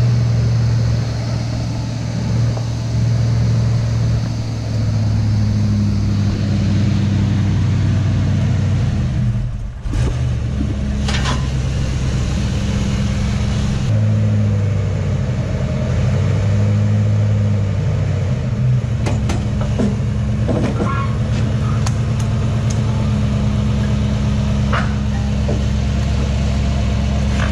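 The 1985 Mustang's swapped-in 5.0 V8 running at a low idle, its pitch stepping up and down a few times as the car is eased up the ramps onto a flatbed trailer. A few sharp knocks come in the second half.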